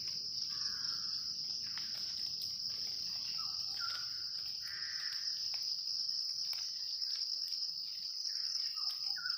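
Steady, high-pitched chorus of insects such as crickets, unbroken throughout, with a bird's short call phrase repeating three times over it.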